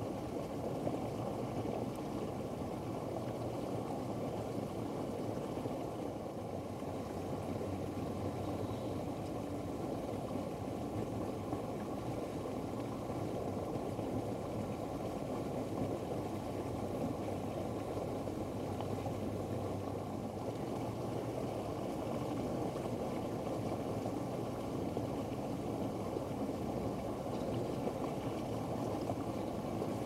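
Steady low rumbling background noise with no distinct calls or events.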